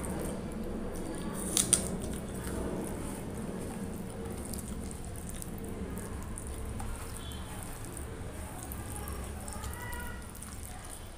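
Rice and potato curry being mixed and squeezed by hand on a plastic plate: soft, wet squishing, with two sharp clicks about a second and a half in.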